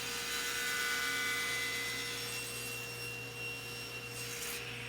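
Table saw running with a whining blade as it crosscuts hard maple. Near the end the whine starts to drop in pitch as the blade spins down.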